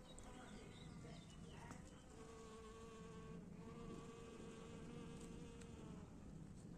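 Bees buzzing, a faint steady hum that breaks off briefly twice and picks up again.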